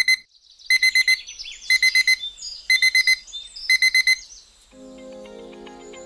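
Digital alarm clock beeping in quick groups of four, about once a second, with birds chirping between the groups. The beeping stops a little after four seconds in and soft music with held notes comes in.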